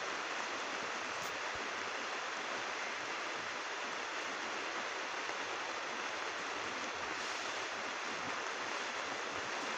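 Heavy rain falling on a thick plastic roof: a steady, noisy hiss with no let-up.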